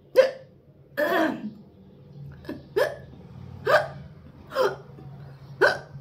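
A woman hiccuping repeatedly: six short, sharp hics about a second apart, the second one slightly drawn out.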